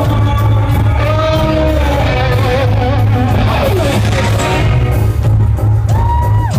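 Rock band playing live: a singer's voice over electric guitar, with a loud, dense low end of bass and drums. Near the end a held note drops away.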